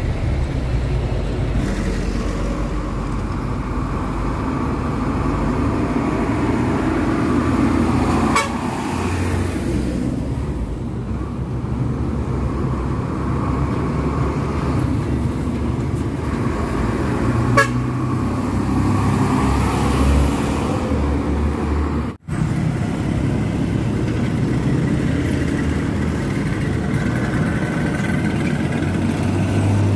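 Heavy diesel dump trucks running past in road traffic, with vehicle horns sounding. A couple of sharp knocks are heard, and the sound drops out briefly about two-thirds of the way through.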